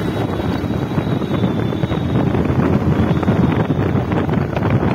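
Motorcycle engine running under way, with wind buffeting the microphone.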